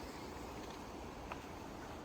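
Steady outdoor ambience, a low rumble and hiss, with one faint short high chirp about two thirds of the way through.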